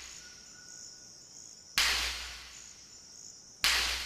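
Rubber tree seed capsules bursting open on the tree: two sharp cracks about two seconds apart, each trailing off over about a second. A steady high chirring of insects runs underneath.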